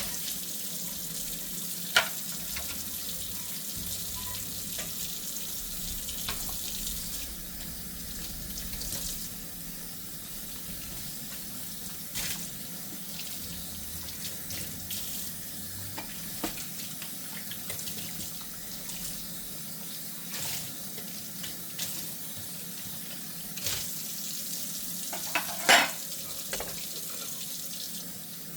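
Tap water running steadily into a kitchen sink during handwashing of dishes. A few sharp clinks of dishes knock through it, one about two seconds in and the loudest pair near the end.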